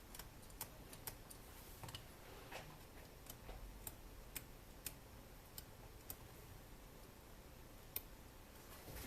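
Faint, irregular light clicks and taps, about a dozen, from small parts and tools being handled at a workbench.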